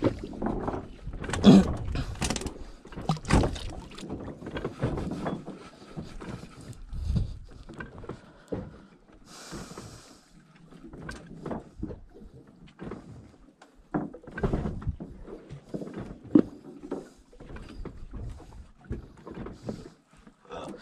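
Irregular knocks, thumps and handling noises aboard a wooden fishing boat at sea while a hand line is worked over the side, with a brief hiss about halfway through.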